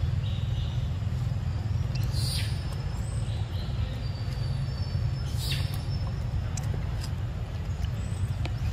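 Outdoor ambience: a steady low rumble, with a few short, high bird chirps and two brief rustling bursts.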